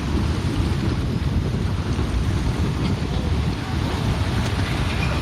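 Steady low rumbling roar of a massive mudslide pouring down a mountainside, mixed with wind buffeting the microphone.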